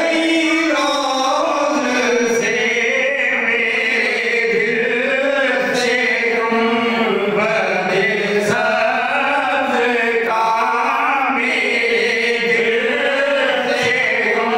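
A man singing a naat, an Urdu devotional song in praise of the Prophet, unaccompanied into a handheld microphone. He sings one continuous line of long held notes that bend up and down in pitch.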